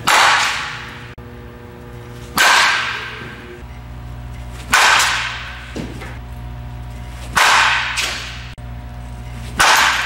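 Softball bat striking front-tossed softballs: five sharp cracks about two and a half seconds apart, each with a short fading tail. A steady hum sits underneath.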